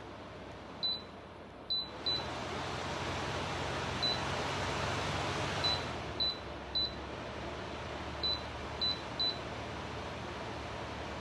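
Electric fan blowing, with a string of short high beeps from its control buttons as the settings are changed. The rush of air steps up about two seconds in, is strongest around the middle, then settles a little lower.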